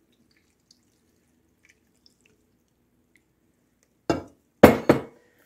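Whisked egg-and-milk mixture poured from a measuring bowl over cabbage and cheese in a glass casserole dish, barely audible. A loud knock comes about four and a half seconds in.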